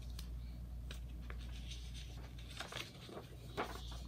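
Pages of a paperback picture book being handled and turned: faint paper rustles and a few soft taps, over a steady low hum.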